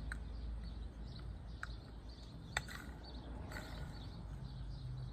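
A few faint, sharp clicks, with faint bird chirps in the background.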